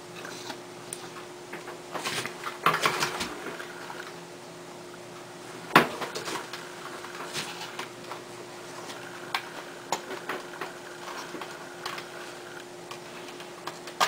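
Scattered light clicks and knocks of hands handling a dishwasher's plastic control-board housing and its wiring, with one sharper click about six seconds in, over a faint steady hum.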